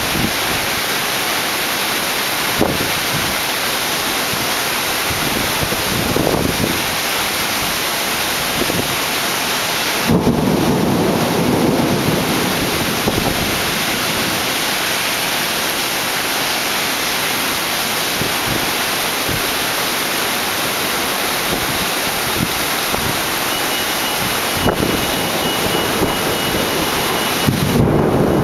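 Heavy rain pouring steadily in a summer thunderstorm, with a low rumble of thunder swelling about ten seconds in and again near the end.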